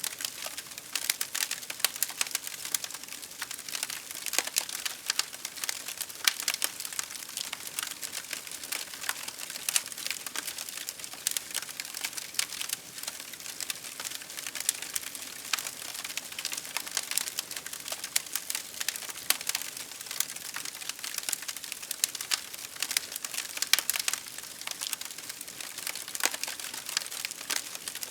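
Wood fire crackling: dense, irregular sharp pops and snaps over a soft steady hiss.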